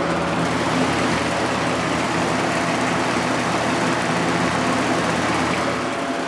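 Plastic Marco motor of a 1983–84 Lasko box fan running steadily on high: blades rushing air over a pronounced, steady motor hum that resonates through the fan's frame. The owner puts the strong hum down to the motor having a lot of hours on it.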